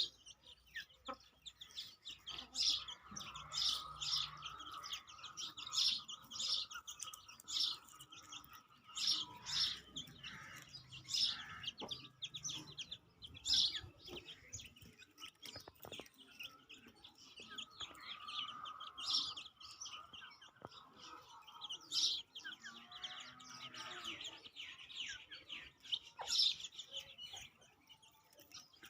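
Free-ranging Aseel chickens: many short, high chirps keep coming throughout, mixed with soft clucking.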